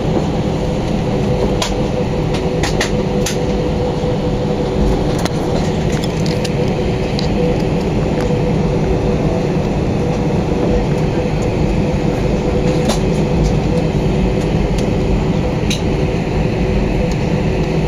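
Airbus A320 engines running, heard inside the passenger cabin as a steady drone with a low rumble and a constant hum, with a few faint clicks.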